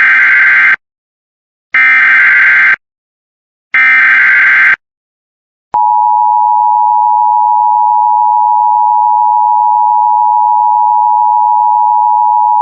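Emergency Alert System header: three one-second bursts of warbling digital data tones (the SAME code announcing the alert), then, after about a second's pause, the EAS attention signal begins, a loud steady two-tone beep of 853 and 960 Hz.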